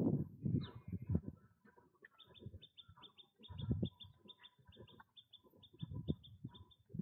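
A small bird chirping: a few single high chirps, then from about two seconds in a quick, steady series of short high notes, about four a second. Irregular low thumps and rumbles come and go underneath and are the loudest sounds.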